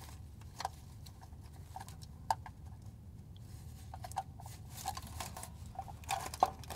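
Faint scattered clicks and rustles of a gloved hand working the oil filter adapter and its bolts up into place against the engine block, over a low steady hum.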